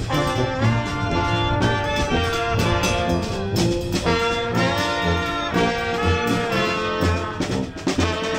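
Live oompah-style brass band playing a tune: trumpets and trombone carry the melody over a sousaphone bass that pulses on the beat.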